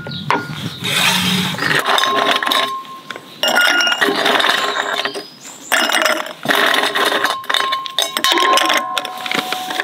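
Ice cubes dropped into a tall drinking glass, clinking and clattering against the glass and each other in several bursts, with the glass ringing faintly.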